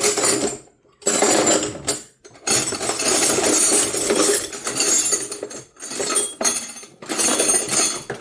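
Steel wrenches clinking and jangling against each other as they are handled and sorted by hand, in several stretches with short breaks.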